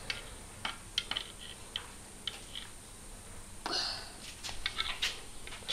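A pistol-grip trigger oil can being pumped, making faint, irregular clicks as oil is squirted into a rotary engine's housing during assembly.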